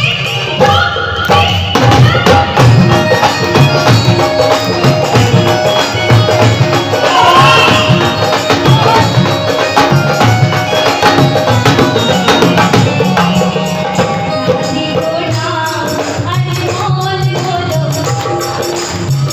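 Hindi devotional bhajan music, a passage with little or no singing, carried by a steady percussion beat with jingling percussion.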